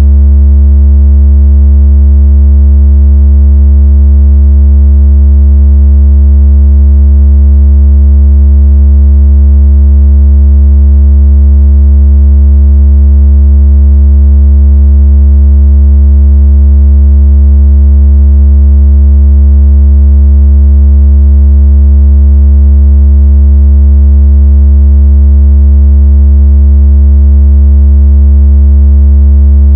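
A continuous, very loud, deep electronic tone holding one steady pitch without a break. It is a water-ejection speaker tone, made to vibrate water out of a phone speaker.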